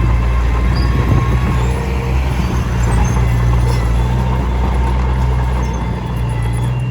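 Komatsu D21P crawler bulldozer's diesel engine running steadily, with a thin steady whine and a continuous rattle over it.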